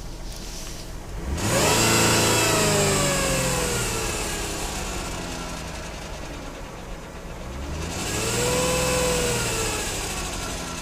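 Chrysler Pacifica engine revved twice from idle, once sharply about a second and a half in and again more gently near the end, each time slowly dropping back. A thin whine rises with the revs and falls away as they drop. It appears only when revving, and the owner reports no power steering symptoms.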